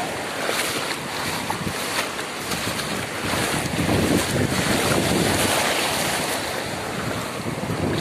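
Shallow surf washing around feet wading through it, with splashing steps and wind buffeting the microphone. The wash swells louder about halfway through.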